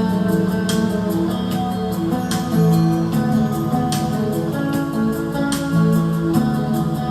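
Background music: an acoustic guitar strumming in a steady rhythm, an instrumental passage of a soft song about sailing.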